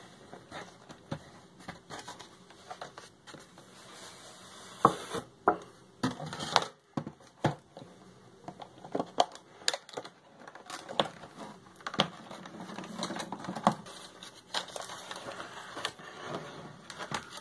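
Cardboard box and clear plastic packaging being handled and unpacked: plastic crinkling and rustling, broken by scattered taps, clicks and scrapes.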